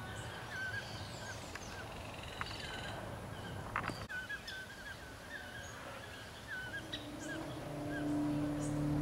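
Outdoor evening ambience of small animals chirping, short hooked calls repeated every half second or so with fainter higher chirps. A low steady hum rises in the last second or two.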